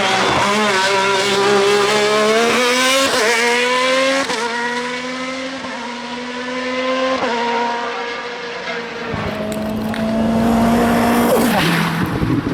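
Hillclimb race car engine accelerating hard, its pitch climbing through the gears with quick drops at each upshift. It holds a steady high note, then falls sharply near the end as the driver lifts or shifts down.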